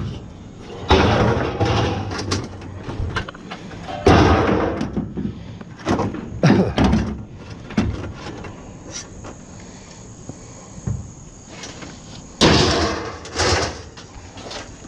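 Pieces of scrap metal clanking and rattling as they are tossed into a bucket: about five loud clanks, with quieter shuffling of metal between them.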